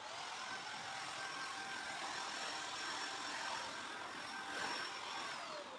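Motorised spray gun spraying polish onto cane furniture: a steady hiss with a motor whine that starts abruptly, then cuts off near the end, the whine falling in pitch as the motor winds down.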